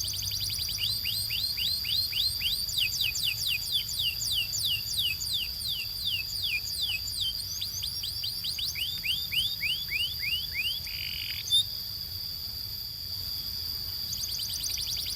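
Canary singing: a long run of quick downward-sliding notes, about four a second, over a steady high whistle-like tone. About two-thirds through, the notes stop with a short rasp and a click, then start again near the end.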